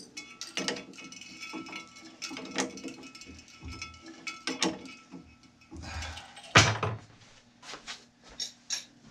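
Metal clicks and rattles of a drill bit being fitted into a bench drill press chuck and the chuck tightened, with one sharper knock about six and a half seconds in.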